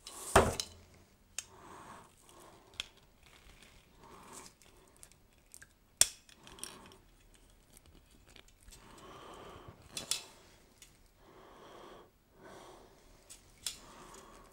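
Røde PSA1 studio boom arm being bent and swung by hand, its metal joints clicking and knocking: a sharp knock about half a second in, another around six seconds, and smaller clicks between. Breathing close to the microphone fills the gaps.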